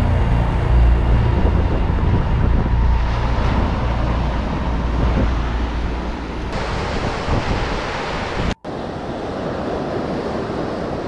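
Ocean surf washing over a rocky shore, with wind buffeting the microphone. A heavy low rumble fills the first part, and the hiss of the surf grows brighter after that. The sound cuts out for an instant about three-quarters through.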